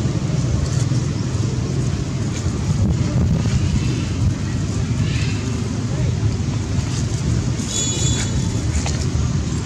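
Steady low outdoor rumble with no rhythm, with a brief high-pitched squeak about eight seconds in.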